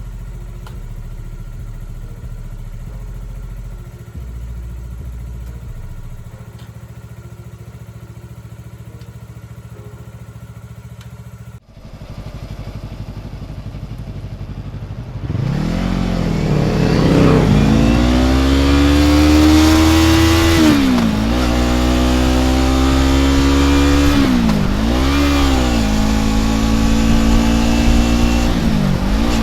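2015 Yamaha R3's 321 cc parallel-twin engine running steadily. It then accelerates hard: the engine note climbs and falls back several times as the rider shifts up through the gears with the new shift pedal.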